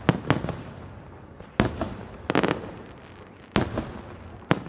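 Aerial firework shells bursting in a salute display: about seven sharp bangs, some in quick pairs, coming roughly every second, each trailing off in an echo.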